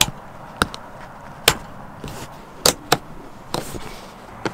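Sharp plastic clicks and knocks, about five of them at irregular intervals, as yellow plastic anchor guide clips are pressed onto a car seat's anchor bars, with a brief rustle of handling about three and a half seconds in.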